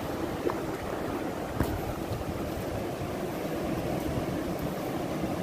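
Sea surf washing over a rocky shore, with wind buffeting the microphone, a steady rushing noise. Two faint knocks early on.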